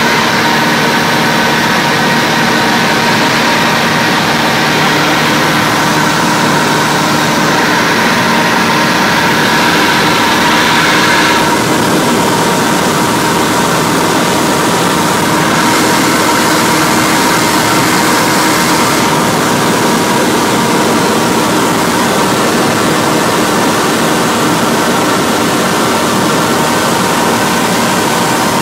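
Cessna 172's upgraded 180-horsepower four-cylinder piston engine and propeller droning steadily in flight, heard loud inside the cabin. Its tone shifts slightly about eleven seconds in.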